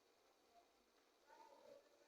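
Near silence: room tone, with a brief faint sound about a second and a half in.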